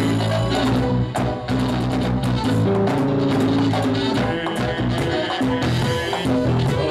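Live Dominican merengue band playing at full volume. Sustained instrument lines sit over a driving percussion rhythm of congas and tambora.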